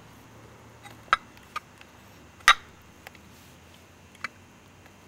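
A few sharp, irregular clicks and knocks from the opened-up foot pedal of an electric pottery wheel being pressed and its linkage worked up and down. The loudest knock comes about two and a half seconds in. A part in the linkage is loose and not grabbing.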